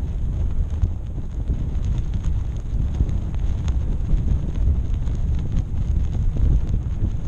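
Wind buffeting the microphone of a high-altitude balloon's payload camera: a steady low rumble with occasional faint ticks.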